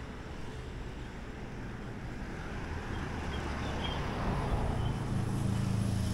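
Street ambience with steady traffic noise and a low engine hum that grows louder over the last couple of seconds. A few faint high chirps come about three seconds in.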